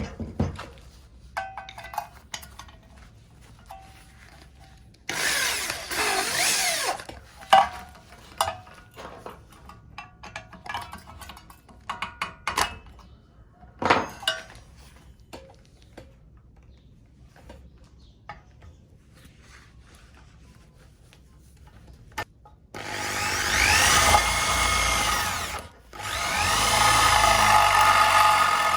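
Scattered clicks and knocks of tools being handled, with a short noisy burst about five seconds in. Near the end an electric drill spins up and runs, stops for a moment, then runs again.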